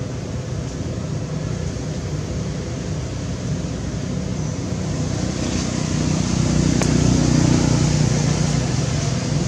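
Low, steady rumble of road traffic, growing louder from about six seconds in as a vehicle draws near.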